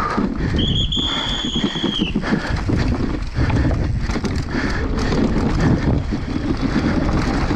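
Downhill mountain bike running over rough ground: wind rushing over the microphone, with the tyres and frame rattling continuously. Near the start a high steady squeal lasts about a second and a half.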